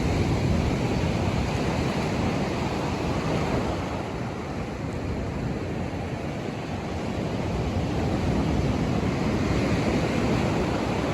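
Rough sea surf washing onto the beach, swelling and easing over several seconds, with wind on the microphone.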